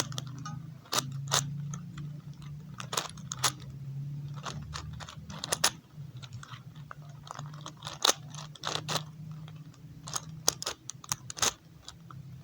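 Plastic layers of a budget 5x5 Rubik's cube being turned by hand, clicking and clacking irregularly, sometimes in quick runs of turns, over a steady low hum.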